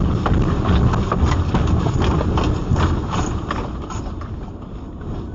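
Earthquake shaking heard from a car: a heavy low rumble with rapid, irregular knocking and clattering that eases off toward the end.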